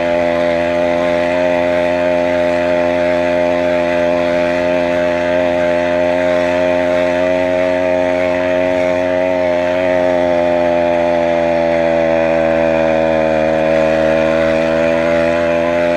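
Stock two-stroke motorized-bicycle engine kit running steadily under load at cruising speed, a buzzy, even note whose pitch sags slightly toward the end.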